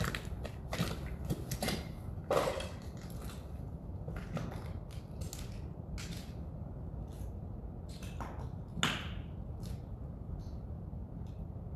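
Footsteps crunching on rubble and debris underfoot, irregular steps with a few louder crunches, over a steady low rumble.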